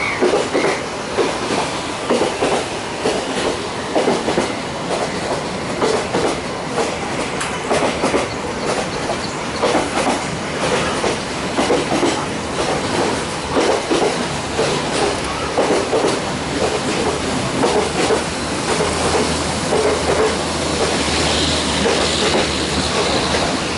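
Yangon Circular Railway train running along the track, heard from inside the carriage: a loud steady rumble with a rhythmic clickety-clack of the wheels over the rail joints, about one or two clacks a second. A low hum joins in near the end.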